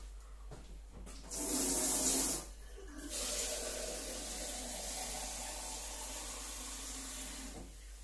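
Tap water running into the espresso machine's plastic water tank as it is topped up: a loud gush about a second in, then a steady fill for about four seconds that stops near the end.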